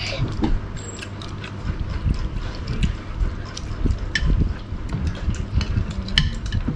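Metal spoons clinking and scraping against ceramic plates and a serving dish during a meal: short, scattered clicks over a low steady hum.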